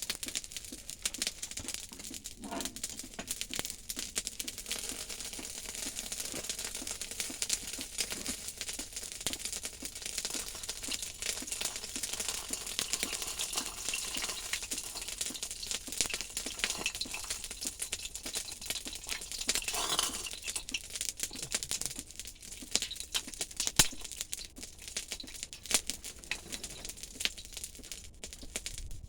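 Forge fire crackling and hissing steadily while the steel heats for hardening, with many small pops and one sharper click about 24 seconds in.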